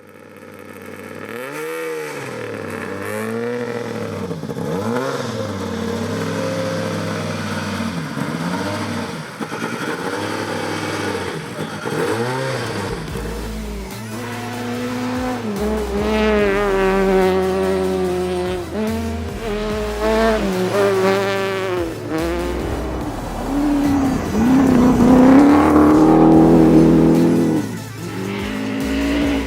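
Rally car engine revving hard on a gravel track, its pitch rising and falling again and again through gear changes and lifts, with tyres working the loose surface; loudest a little before the end.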